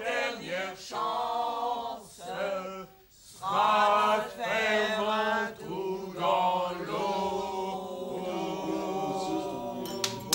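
Unaccompanied singing in a chant-like style, with long held notes that bend in pitch, and a short break about three seconds in. Sharp hand claps start right at the end.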